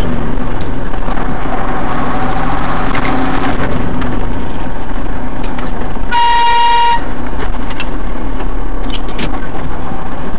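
Steady engine and road noise of a moving car, heard from inside the cabin. About six seconds in comes one high beep lasting just under a second.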